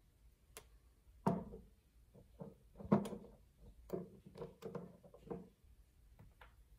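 Handling of a small glass essential-oil bottle: a series of light knocks and clicks as it meets a wooden tabletop and its plastic screw cap is taken off.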